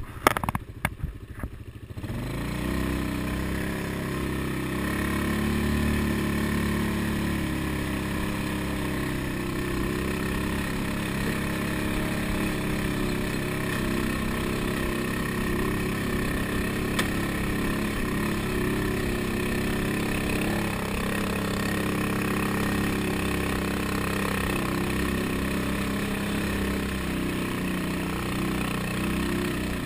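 ATV engine running steadily under load as the quad climbs a rough, rocky dirt track. A few sharp knocks come in the first couple of seconds before the engine sound settles in.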